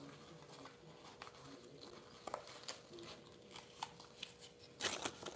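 Foil Yu-Gi-Oh booster pack wrapper crinkling in the hands, with scattered light crackles and a louder crinkle burst near the end.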